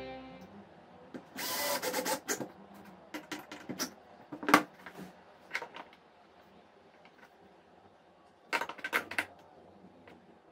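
Cordless drill-driver running for about a second as it drives a hinge screw into a pine frame, followed by scattered clicks and knocks of tools being handled and set down, with the sharpest knock about halfway through and another short cluster of clicks near the end.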